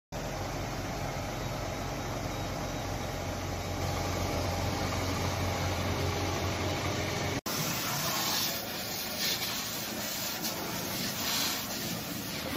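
Fire engine running, a steady engine drone with a low hum. About seven seconds in the sound cuts abruptly to a louder, uneven rushing noise.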